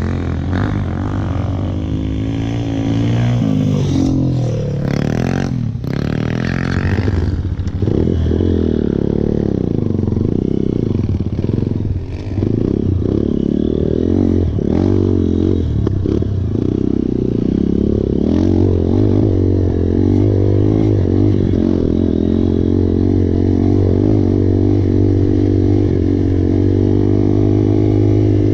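Dirt-bike engine revving up and down over and over as it is ridden, with a few sharp knocks and clatters a few seconds in.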